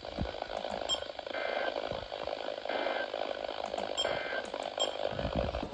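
Emergency Alert System end-of-message data tones from a weather radio: three short, buzzy digital bursts a little over a second apart, over radio static. They mark the end of the broadcast warning.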